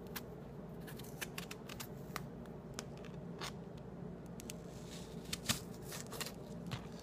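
Kitchen knife peeling and cutting an apple on a plastic cutting board: an irregular run of small crisp clicks and scrapes as the blade cuts through skin and flesh, with one louder click about five and a half seconds in.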